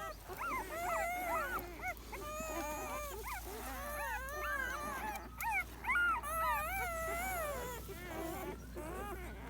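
Many newborn puppies whining and squealing at once, a continuous tangle of high cries that rise and fall in pitch and overlap one another.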